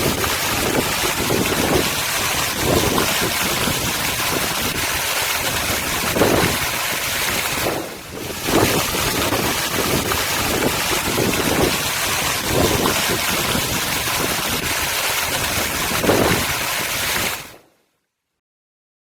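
Steady rushing noise, of the wind-and-surf kind, with irregular lower surges; it dips briefly about eight seconds in and cuts off abruptly near the end.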